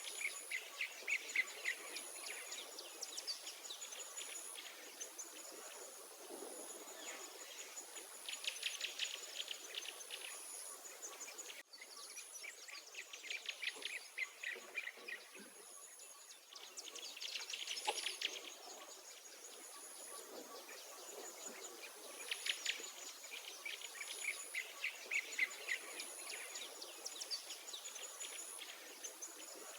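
Songbirds singing outdoors in rapid trilled phrases that recur every few seconds, over a high, thin insect note repeating about once a second.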